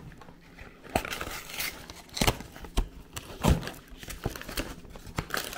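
Packaging of a bag of apples crinkling and rustling as it is handled, in several separate crinkles and sharp clicks.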